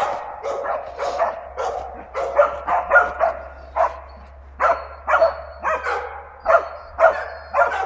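Hunting dogs barking repeatedly at a wild boar, baying it: short barks about two a second, with a brief pause about four seconds in before the barking resumes.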